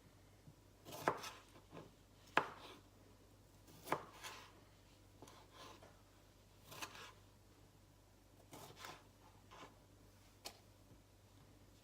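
Kitchen knife knocking against a cutting board as vegetables are sliced: faint, irregular single knocks, about ten in all, the loudest about a second and two and a half seconds in.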